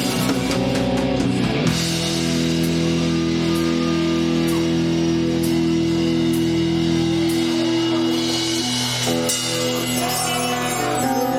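Live rock band playing an instrumental passage: distorted electric guitar chords held over steady drums and cymbals.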